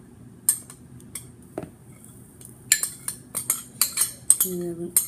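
A metal spoon clinking and scraping against a ceramic bowl: a few scattered taps, then a quick run of clinks from about three seconds in.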